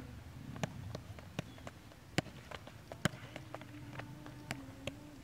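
Futsal ball being juggled off the foot and thigh: light, irregular taps, a little more than one a second.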